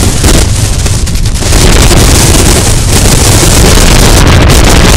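Wind buffeting the microphone of an action camera mounted at the front of a moving Isuzu pickup truck: a loud, steady rush with the truck's road noise underneath, easing briefly about a second in.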